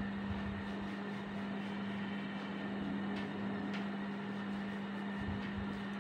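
A steady low electrical hum over an even hiss, with a few faint ticks partway through, as a duster is wiped across a whiteboard.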